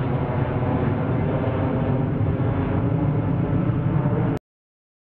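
Boeing 767 twin-engine jet climbing out after takeoff: a steady low engine rumble that cuts off suddenly about four seconds in.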